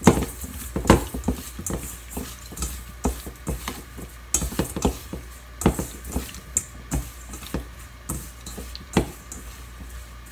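Hands rubbing salt into slippery konnyaku strips in a stainless steel bowl: irregular squelching, knocks and scrapes of the strips and fingers against the metal bowl. The salt rub draws the lye out of the konnyaku.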